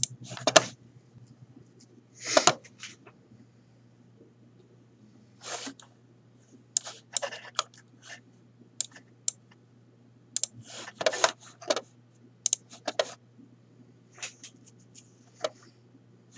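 Irregular clicks from a computer mouse and keyboard, with a few longer rustling bursts, over a steady low hum.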